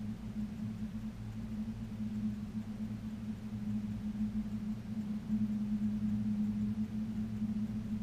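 A steady low machine hum, two low pitches held evenly with a faint rumble beneath, with no distinct events.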